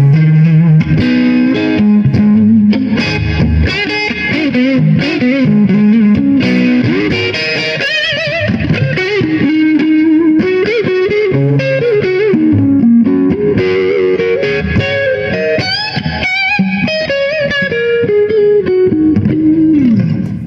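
Electric guitar, a Les Paul, played through a Donner Boost Killer boost pedal into an amp: bluesy single-note lead lines with string bends and vibrato, ending on a note that slides down in pitch.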